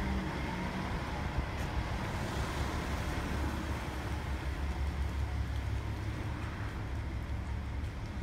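Diesel railcar engine idling, a steady low rumble.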